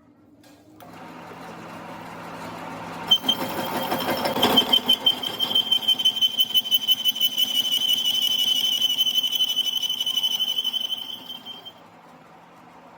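A workshop machine runs up with a low hum, then metal being cut gives a high, steady squeal that pulses rhythmically several times a second for about nine seconds before dying away near the end.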